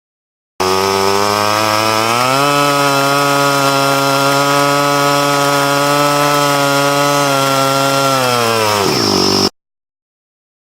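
A small engine running loudly with a steady note. Its pitch climbs about two seconds in, holds level, then falls away near the end and cuts off abruptly.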